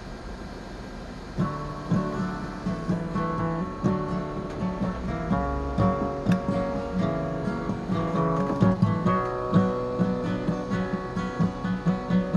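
Acoustic guitar strummed as a song's intro, coming in about a second and a half in after a brief quiet, with steady rhythmic chords.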